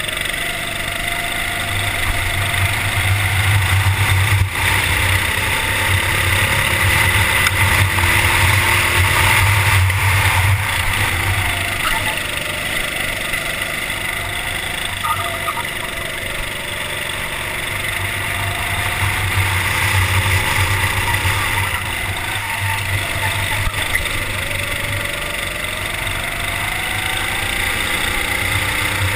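Kart engine running on track, heard from an onboard camera, its revs rising and falling as the kart brakes and accelerates through the corners, with wind rushing over the microphone.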